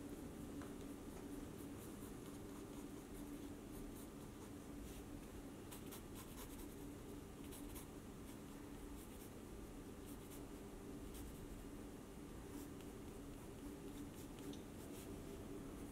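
Mechanical pencil lead scratching on sketchbook paper in many short, irregular strokes, faint, over a steady low hum.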